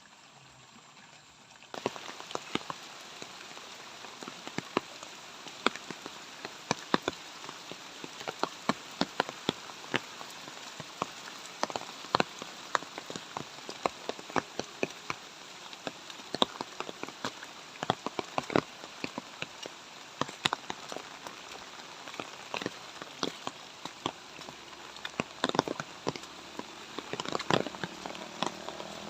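Light rain falling with a steady hiss, starting about two seconds in, with frequent sharp individual raindrops striking close by.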